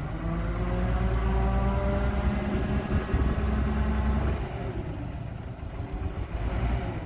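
Engine of a large Hyster forklift revving while the operator works the mast hydraulics, then dropping back toward idle about four and a half seconds in.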